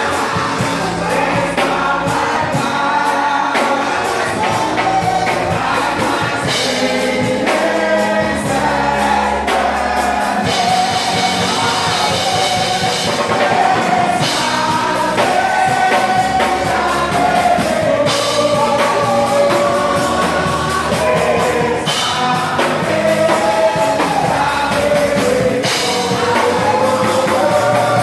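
A church congregation singing a gospel praise song together over amplified band music, with a steady beat of drums and cymbals.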